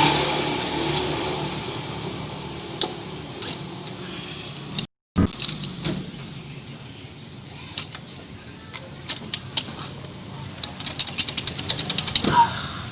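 Workshop sounds while a motorcycle engine is being stripped: a vehicle noise fades out over the first few seconds, then scattered sharp metallic clicks and taps from tools and engine parts being handled, quickening into a rapid run of clicks near the end.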